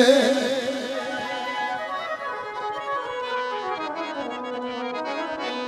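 Instrumental interlude of a Saraiki folk song: the singer's last note fades in the first half-second, then a held instrumental melody over a steady drone, with a slow falling run near the middle.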